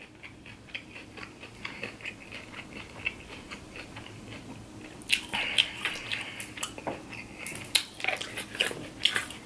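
Quiet chewing of salad with small crunches, then a plastic squeeze bottle of salad dressing squeezed over the salad, with louder spluttering squirts starting about five seconds in and again near the end.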